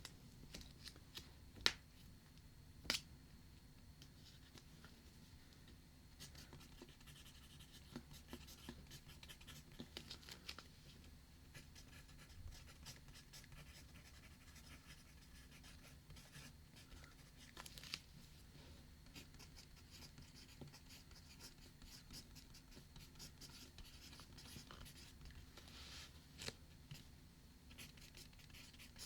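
Faint scratching of a pen or pencil writing on paper, with scattered small clicks and two sharper taps a couple of seconds in.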